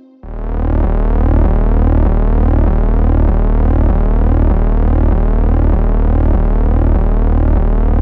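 Electronic background music that starts abruptly: a deep bass pulsing about twice a second under repeating sweeping synthesizer tones.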